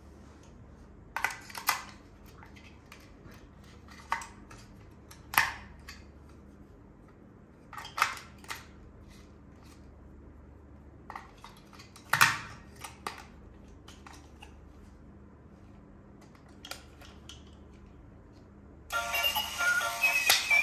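Toy parts and packaging being handled: scattered sharp clicks and taps, a second or more apart. Music starts near the end.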